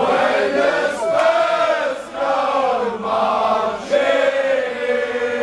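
Crowd of football supporters chanting a song together in loud unison, in phrases about a second long.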